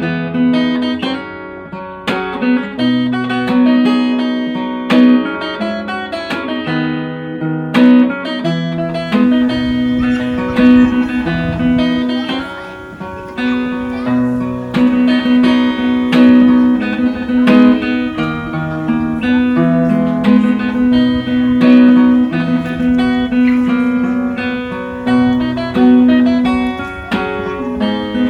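Background music: plucked acoustic guitar playing with a steady rhythm and a repeating bass line.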